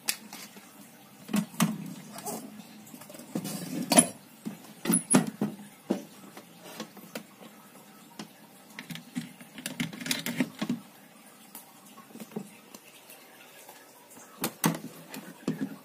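Scattered knocks and clatter of a rice cooker's metal inner pot being handled and set into the cooker, and the cooker's lid being shut.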